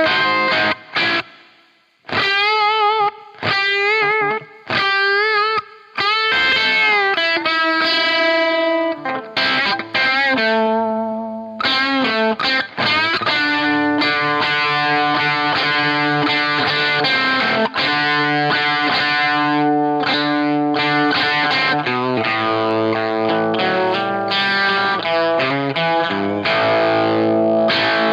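Electric guitar played through a Dunlop FFM1 Silicon Fuzz Face Mini fuzz pedal into a Marshall Super Lead amp, giving a fuzz-distorted tone. It starts with short phrases of single notes with vibrato and brief pauses, then moves into denser sustained notes and chords.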